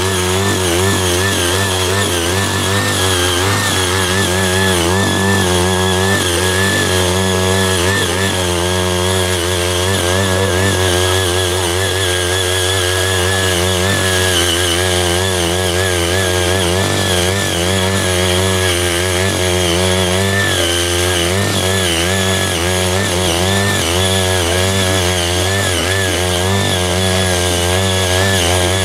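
Small engine of a CY80 walk-behind power tiller running steadily under load while its rotary tines break up dry, cloddy soil; the engine note wavers slightly up and down as the load changes.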